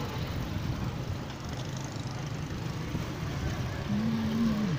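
Roadside street ambience: a steady low rumble of engine and traffic noise, with a brief low hum near the end.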